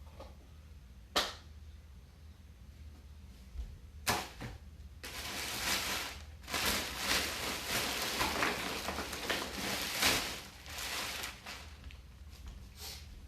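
Plastic packaging being handled: two sharp clicks, then about six seconds of dense crinkling and crackling, and one more click near the end.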